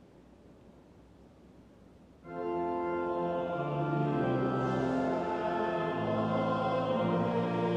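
Quiet room tone, then about two seconds in a church organ begins playing held chords as the accompaniment to a hymn verse.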